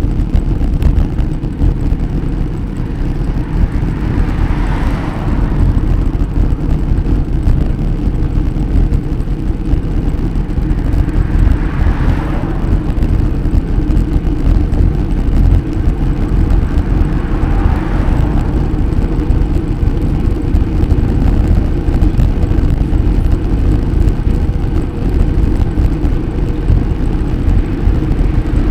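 Steady, heavy low rumble of wind on the microphone and road noise while riding a bicycle, with three brief swells of higher hiss passing by.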